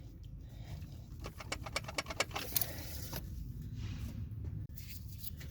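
Small clicks and scrapes of plastic and metal shifter parts being handled as a part is slid onto the shift cable and lined up with its keyway. There is a quick run of clicks in the first three seconds and a couple more a little later, over a low steady rumble.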